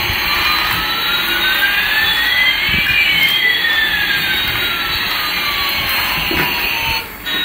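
Toy Airbus A380's electronic jet-engine sound effect playing from its small speaker: a steady hissing whoosh with one tone gliding upward and another gliding downward, crossing midway. It breaks off briefly near the end.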